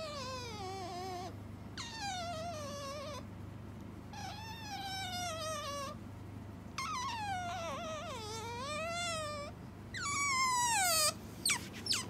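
Asian small-clawed otter calling insistently as a wake-up 'alarm': about five long, wavering whine-like calls, each falling in pitch, with short gaps between, and a few short high squeaks near the end. The calling does not stop when it is pressed.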